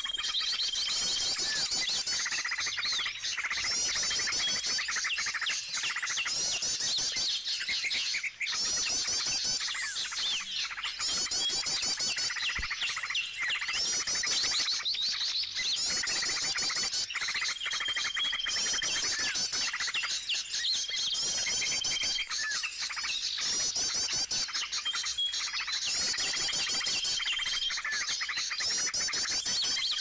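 Small birds chirping densely and without a break, in rapid high trills, with a steady high whistle about a second long that recurs every few seconds. These are the calls of a bird-luring session (mikat) drawing small birds in.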